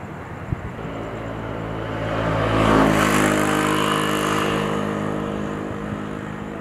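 A passing motor vehicle's engine: the sound swells to its loudest just under three seconds in, then slowly fades away.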